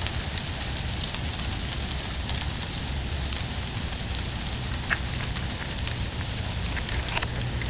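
Ice storm: sleet and freezing rain falling steadily on surfaces, a loud, dense hiss full of tiny ticks, with a low rumble underneath.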